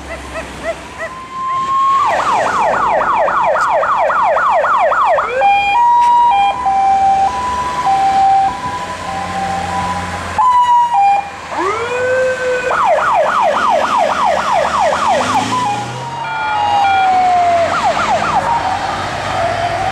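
Fire engine sirens of several departing fire-brigade vans: a fast warbling yelp, then a two-tone hi-lo for several seconds, then a rising wail that breaks into another fast yelp, and near the end a falling tone.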